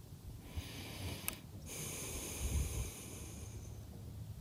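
A person breathing close to the microphone, with two breaths, the second longer, about two seconds. A single soft click comes about a second in.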